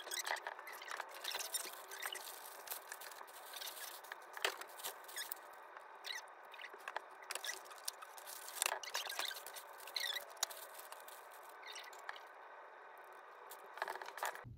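Plastic and paper packaging rustling and crinkling as a boxed ring light and its parts are unwrapped by hand, with many irregular small clicks and crackles.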